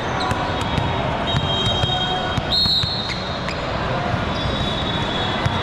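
Indoor volleyball court sounds: sneakers squeaking on the gym floor, sharp knocks of ball contacts, and a steady background of spectators in the hall. The loudest squeal comes about halfway through.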